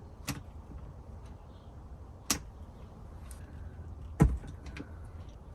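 Sharp clicks and knocks of hand tools and small parts being handled during wiring work, four in all, the heaviest with a dull thump about four seconds in, over a steady low hum.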